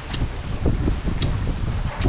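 Wind buffeting the microphone: an uneven low rumble, with a couple of brief faint clicks.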